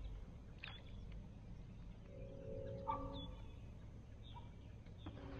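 Low, drawn-out frog croaks about a second long, one about a second in and another near the end, with short high bird chirps in between.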